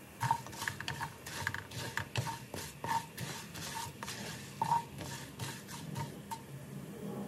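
Wooden spoon stirring orzo as it toasts in hot oil in a coated metal pot. Irregular scrapes and knocks of the spoon against the pot, several of them ringing briefly, over a steady hiss.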